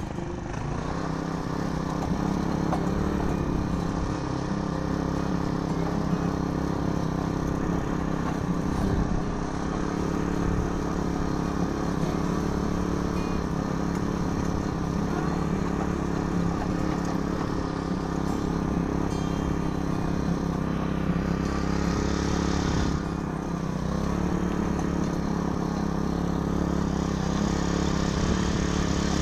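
Small petrol mini tiller running steadily under load as its tines work the soil of a grassy path, with a brief rise in hiss about three quarters of the way through.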